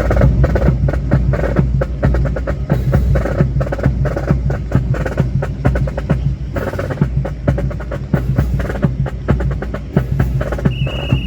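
Cadets' rifle drill: many sharp clacks and knocks of hands slapping rifles and rifle butts striking the ground, in quick, irregular runs, over a steady low rumble. A steady high tone starts near the end.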